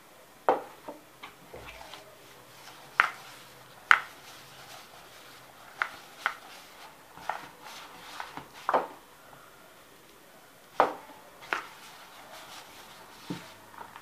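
Irregular sharp knocks and taps, about a dozen, spread unevenly. They come as dental plaster powder is mixed by hand with glue and water in a red plastic bowl on a wooden table.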